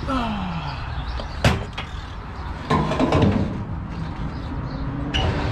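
Handling knocks while refuelling a tractor at a diesel pump: one sharp knock about a second and a half in and a lighter one near the end, over a steady low hum. A short voice sound comes around three seconds in.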